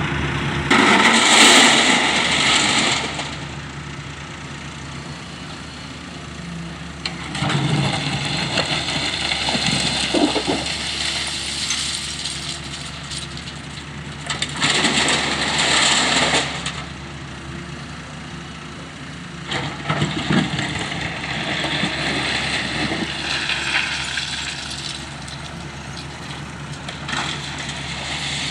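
Wheeled excavator working, its diesel engine running steadily and swelling under load several times. There are two louder rushes of noise, one about a second in and one around the middle.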